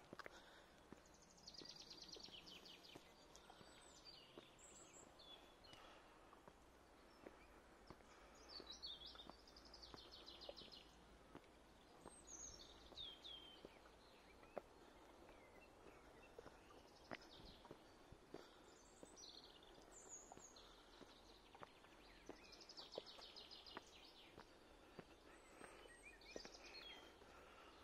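Songbirds singing faintly: short trilled phrases repeating every few seconds, with brief high chirps between them.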